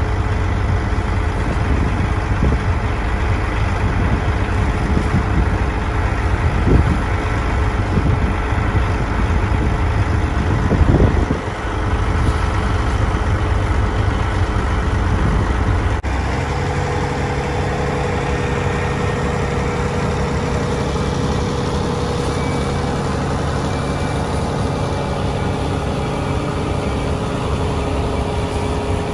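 Heavy diesel tractor engine running steadily at idle. About sixteen seconds in, the low rumble drops away and a steadier hum with a held tone takes over.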